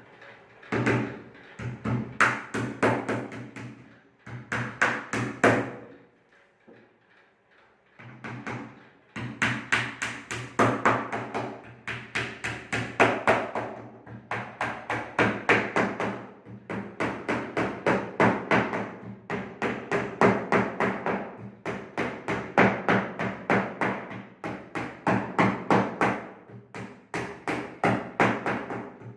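Hammer striking a wooden table in fast runs of blows, several a second, with the wood ringing under each blow. The runs pause briefly about six seconds in.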